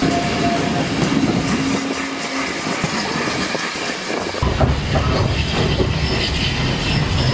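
Heritage railway passenger train running along the track, with the clicks of wheels over rail joints over a steady running noise. About four and a half seconds in, the sound turns to a deeper rumble, as heard from inside the carriage.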